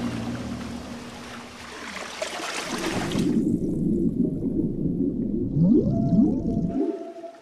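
Music fading out over the first three seconds, then recorded whale song: a low, noisy moaning with several upward-sweeping calls and a held higher note, cutting off abruptly about seven seconds in.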